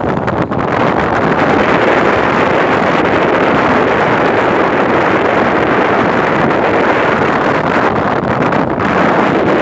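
Wind rushing across the microphone: a loud, steady noise with no horn or engine note standing out.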